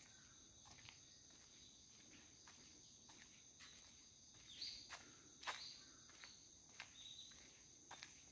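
Faint steady high-pitched insect song, with irregular footsteps over it, the loudest steps about five seconds in.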